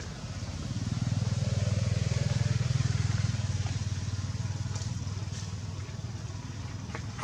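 A motor vehicle's engine passing at a distance: a low pulsing hum that swells about a second in and slowly fades over the next few seconds.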